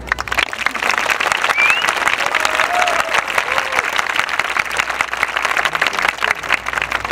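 Audience applauding: dense clapping from many hands that starts abruptly and keeps on, with a brief rising whistle about one and a half seconds in.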